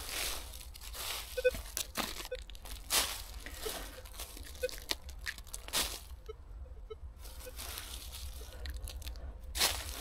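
A bare hand scrabbling through dry leaf litter, roots and loose forest soil, with irregular crunching and rustling: digging by hand for a small metal-detector target.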